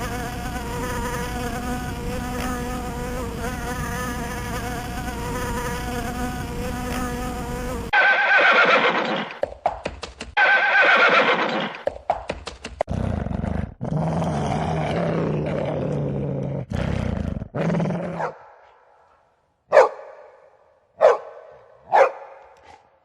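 Steady buzzing of a flying insect for about eight seconds, cut off suddenly. A run of separate animal calls follows: two falling calls, a lower steady call, then four short sharp calls near the end.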